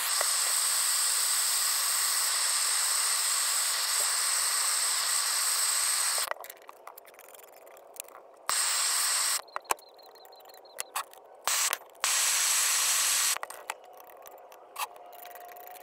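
Gas torch flame hissing, heating metal to melt it: one long steady blast of about six seconds, then two shorter bursts about a second long each. Small clicks and knocks come in between.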